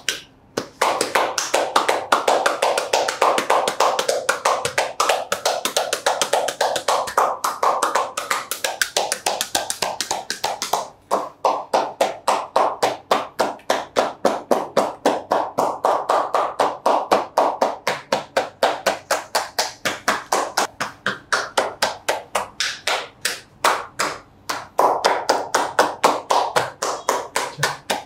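Percussive massage (tapotement): a masseur's hands striking the body in a fast, even rhythm of several slaps a second, pausing briefly a few times.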